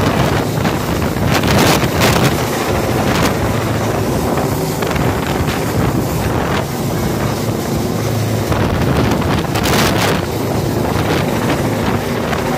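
Helicopter hovering close overhead during a cable hoist: a loud, steady rotor and engine drone, with wind buffeting the microphone.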